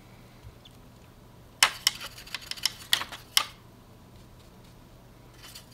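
About half a dozen light clicks and taps in quick succession, starting about a second and a half in, from painting supplies handled on the table, such as a brush knocking against the palette. A faint steady hum runs underneath.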